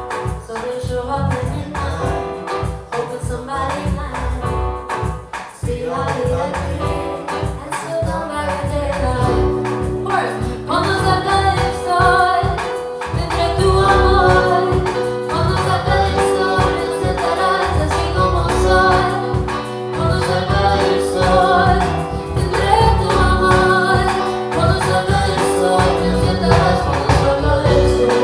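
A singer performing over a live band with drums and bass. About nine seconds in, the accompaniment swells into fuller, held chords.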